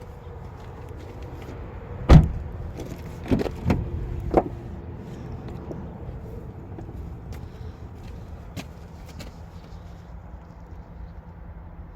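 A car door shut with one loud slam about two seconds in, followed by three lighter knocks and scattered faint clicks.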